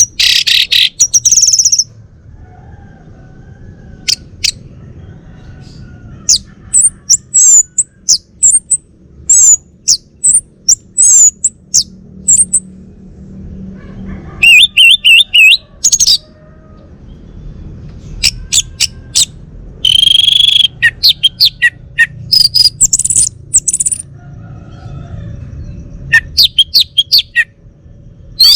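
Male orange-headed thrush singing: loud, high phrases of quick chirps and whistles, each a second or a few seconds long, separated by short pauses.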